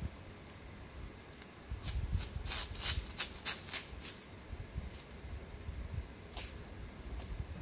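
Black athletic tape pulled off its roll while a thumb is being taped, a quick run of short rips about two to four seconds in, then one more brief rip a little after six seconds.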